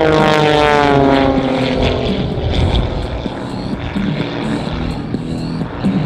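Three Pitts-type aerobatic biplanes passing overhead in formation, their propeller drone falling in pitch as they go by. After about two seconds it gives way to music with a steady beat from the airshow loudspeakers.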